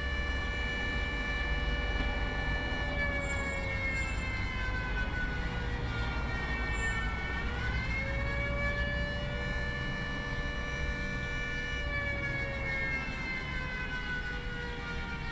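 Flood warning siren sounding during a test: a loud, sustained tone made of several notes that slowly sinks in pitch, swings back up about halfway through, then begins to sag again near the end, over a low rumble.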